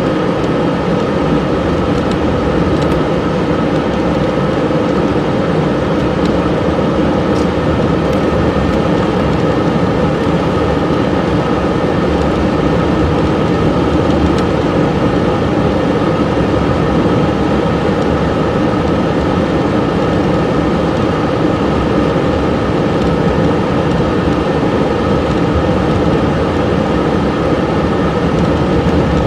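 Steady car road noise heard inside the cabin: engine and tyres on a snow-covered road at low speed.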